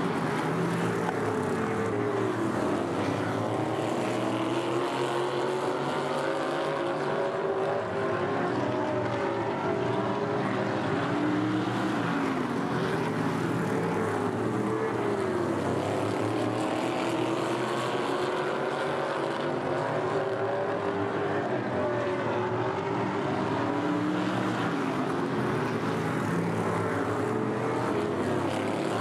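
Engines of open-wheel modified race cars lapping an oval track, their pitch repeatedly rising and falling as the cars pass and go through the turns.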